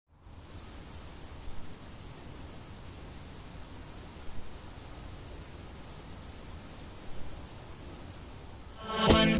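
Insects chirping in a steady, high-pitched pulsing drone over low background noise. Music starts near the end.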